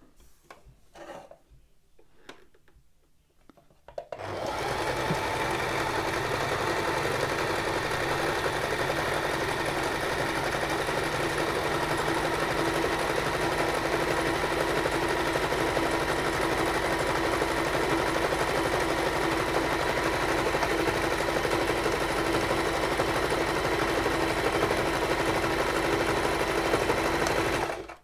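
Singer Tradition sewing machine stitching fabric at a steady, even speed. It starts about four seconds in and stops abruptly just before the end.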